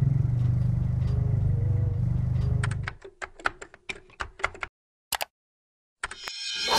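Van engine running with a steady low drone heard from inside the vehicle, cutting off after about three seconds. A quick run of about ten sharp clicks and rattles follows, then a brief near-silence, and music rises in the last moment.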